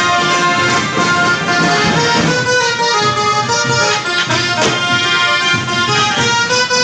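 Loud procession band music: a melody of held notes stepping up and down, played over drum beats.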